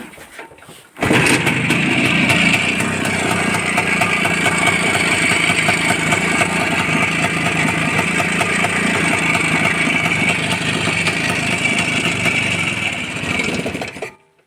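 A small motorcycle engine running, with a fast, dense clatter from the primary (engine) chain. It starts abruptly about a second in and cuts off just before the end. The owner finds the chain too noisy even though the chain and clutch basket are new, and suspects either the unreplaced sprocket or that this is simply how it should sound.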